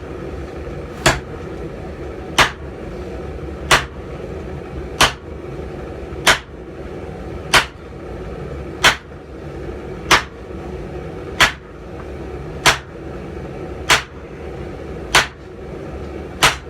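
Heavy hammer blows on hot steel at the anvil, struck in a steady rhythm about once every 1.3 seconds, thirteen blows in all, over a steady low rumble.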